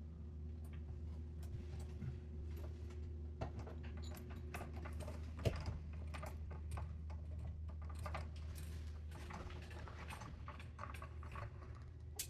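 Irregular small metallic clicks, taps and rattles of hand tools and fittings being worked under a kitchen sink while removing faucet hardware, with one sharper knock about five and a half seconds in. A steady low hum runs underneath.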